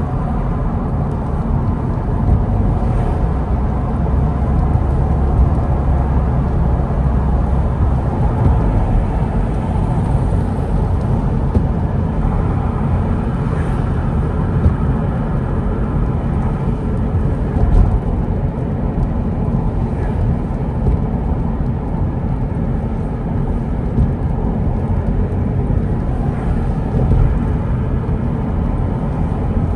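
Steady road noise inside a moving car's cabin: a continuous low rumble of tyres and engine on a wet road.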